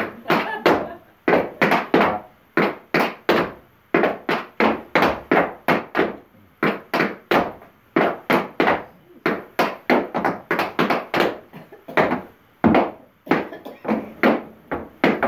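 Tap shoes striking a portable wooden tap board: two dancers tapping steps together in quick rhythmic phrases of about three or four taps a second, with short pauses between phrases.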